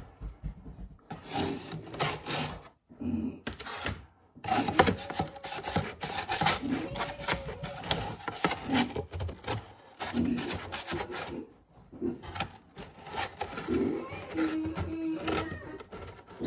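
Plastic spatula scraping and tapping against a metal baking sheet in quick, irregular clicks while cookies are lifted off it, with short pitched voice- or squeal-like sounds in the background.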